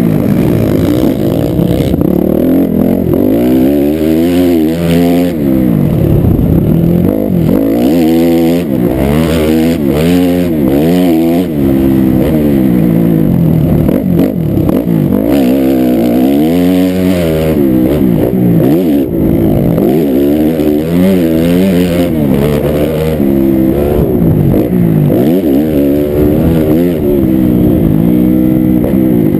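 Off-road motorcycle engine running hard, its pitch rising and falling again and again as the rider works the throttle and shifts over the dirt track.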